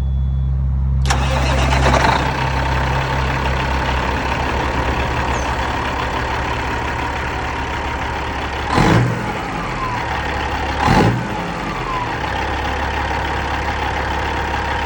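Caterpillar 3406E diesel engine of a 1996 Peterbilt running steadily, now starting again after its starter solenoid was replaced. Noise rises sharply about a second in and stays up, and there are two short loud bursts about nine and eleven seconds in.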